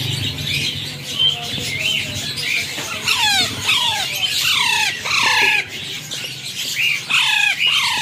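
Alexandrine parakeet chicks squawking: a run of short, harsh calls that each fall in pitch. The calls are thickest a few seconds in and come again near the end.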